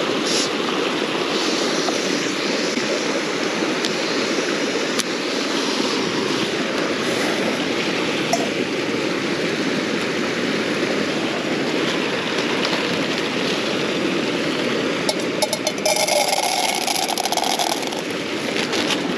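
Small stream rushing steadily over rocks, with a few clicks and a short clatter of handling near the end.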